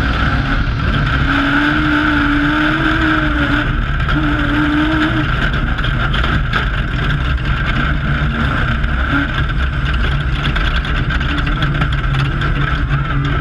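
Off-road race vehicle's engine running under load, with a steady rumble and road and drivetrain noise; its pitch wavers in the first few seconds.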